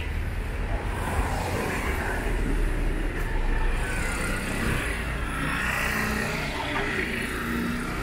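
Street traffic: cars and vans driving by with a steady low engine and tyre rumble, swelling a little a few seconds in.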